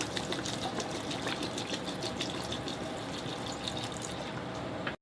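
Water being poured: a steady splashing stream with many small bubbling pops, cut off abruptly near the end.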